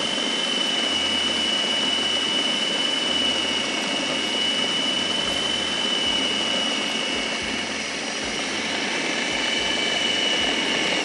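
Electric food processor motor running steadily with a high whine, its blade grinding a raw chicken-mince kofta mixture to a paste.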